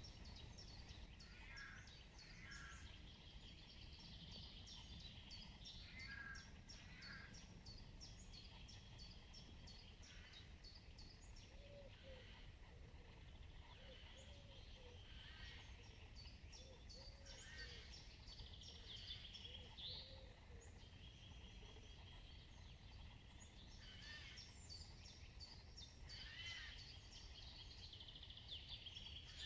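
Faint songbirds singing and calling, many short high chirps and song phrases overlapping, over a low steady rumble. A lower call repeats several times in the middle.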